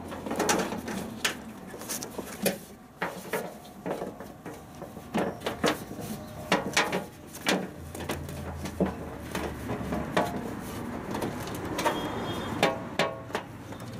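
Irregular clicks and knocks of hands working a new drive belt onto a washing machine's drum pulley, with the machine's parts knocking and rattling.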